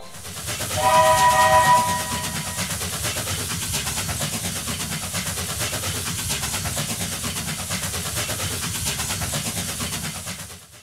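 Sound effect of a chord whistle blast lasting about a second, followed by a steady rhythmic rumbling clatter that fades out near the end.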